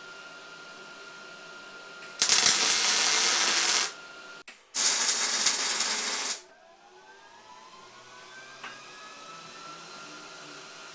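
Electric welding arc on steel plate, in two bursts of about a second and a half each, starting about two and about five seconds in. The arc is a steady, even hiss.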